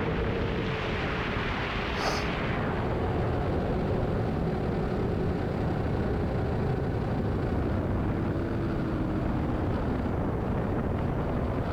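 Steady low rumble of wind on the microphone, with a faint hum that slowly sinks in pitch and a brief rustle about two seconds in.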